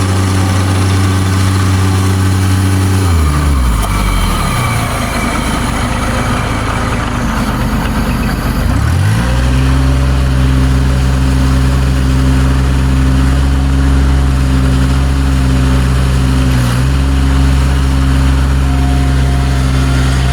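Bobcat MT100 mini track loader's engine running a hydraulic stump grinder attachment. About three seconds in the engine speed drops sharply, stays low for several seconds, then climbs back about nine seconds in and holds steady.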